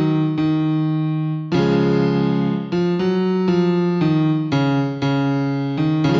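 Background music of piano-like keyboard chords, each struck sharply and left to ring, changing every half second to a second and a half.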